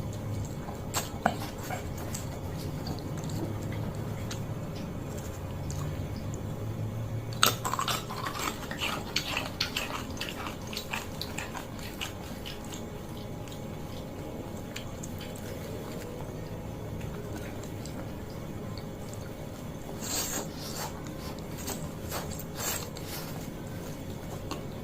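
Close-up mouth sounds of someone eating fried noodles: wet chewing and smacking. Clusters of sharp clicks come about eight to twelve seconds in and again near the end.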